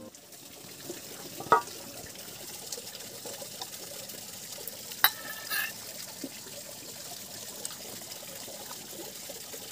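A pot of eel-fish broth bubbling and a metal ladle dipping in and pouring broth, making a steady liquid trickling and splashing. Two sharp clicks stand out, about a second and a half in and again about five seconds in.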